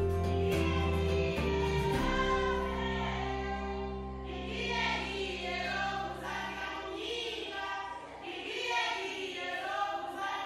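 Closing music: sustained instrumental chords over a bass line, joined from about four seconds in by a group of voices singing.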